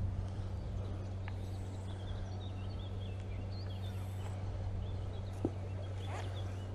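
Outdoor ambience with a steady low hum, small birds chirping for a couple of seconds in the middle, and a single sharp knock about five and a half seconds in.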